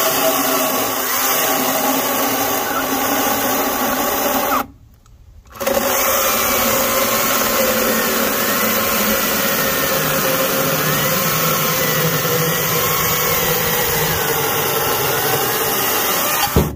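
Greenworks GS110 battery-powered top-handle chainsaw cutting through a log of about 6-inch box elder, its electric motor whining with a pitch that wavers under load. It stops for about a second near the five-second mark, resumes, and cuts off near the end. The saw is being pushed harder than it is built for.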